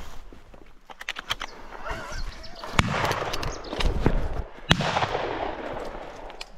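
Shotgun shots: one at the very start, then two louder ones about three and five seconds in, each trailing off in an echo.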